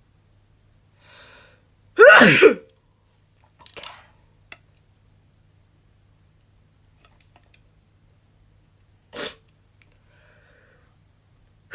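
A young woman sneezes once, loud and sudden about two seconds in, with a falling pitch, after a faint breath in. A few short, quiet breathy sounds follow, and a second sneeze starts right at the end.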